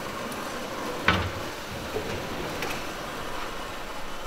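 Rustling and handling noise as a protective cover is pulled off a car body, with a single sharp knock about a second in and a few lighter clicks.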